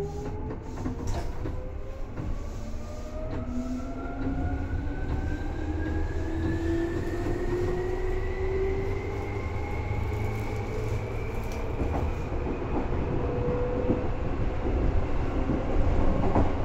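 Seibu 2000 series electric train accelerating, heard from inside the car: the traction motor whine sounds in several tones at once, all rising steadily in pitch over a low running rumble, with scattered clicks from the wheels and rails.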